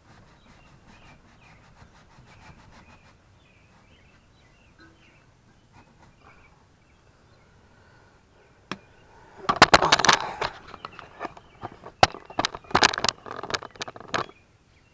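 Faint outdoor background with small bird chirps, then about nine seconds in a loud run of close knocks, clicks and rustling as the camera is handled and moved to a new spot.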